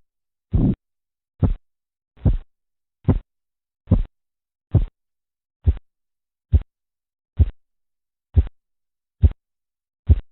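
Korotkoff sounds heard through a stethoscope as a blood-pressure cuff deflates: the arterial pulse tapping with each heartbeat, about a dozen regular thumps a little more than one a second. The thumps grow shorter and sharper, and the last comes near the end.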